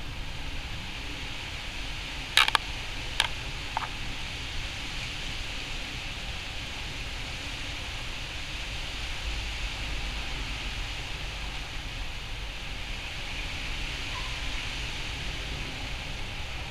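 Steady outdoor background noise, a low rumble with hiss, broken by a few short sharp clicks between about two and four seconds in.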